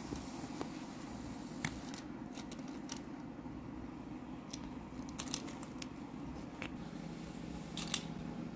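Scattered small clicks and taps of plastic Z scale model train cars as a cat bites and paws them, with the sharpest clatter near the end as the cars are knocked about, over a steady low hum.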